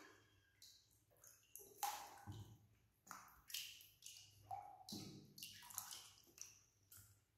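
Faint splashing and sloshing of water in a plastic tub as a baby monkey paddles and swims, coming in short, irregular bursts with a few drip-like plinks.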